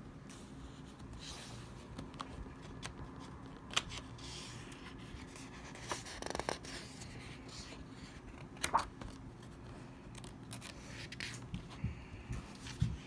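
Pages of a picture book being turned by hand: quiet paper rustling with a few short scrapes and rubs, over a low steady room hum.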